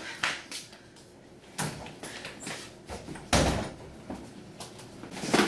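A door banging: a few separate sharp knocks, the loudest and heaviest about three and a half seconds in.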